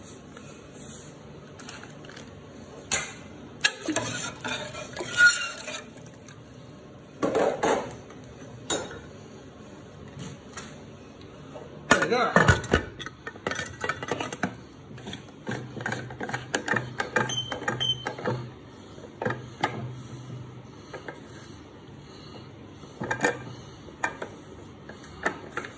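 Scattered metal clanks and clinks of an aluminium pressure cooker pot and lid being handled and the lid fitted onto the pot. The loudest clatter comes about twelve seconds in.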